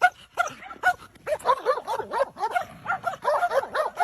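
A dog yipping in short, high, rising-and-falling calls. They are spaced at first and come faster and overlapping after about a second.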